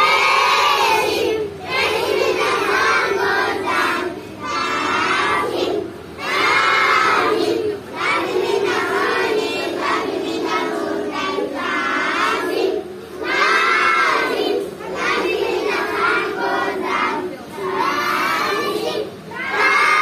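A group of young schoolchildren chanting a prayer together in unison, phrase after phrase, with brief pauses between lines.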